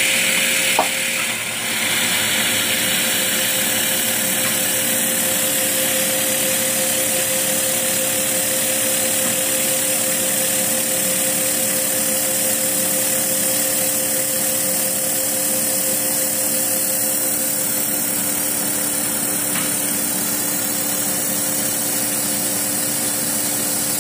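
A Bridgeport-clone milling machine is cutting a slot in a silicon bronze bar with a half-inch solid carbide end mill. It makes a steady machine hum with two held tones under a loud, even hiss from the air and coolant mist blast. There is one brief click about a second in.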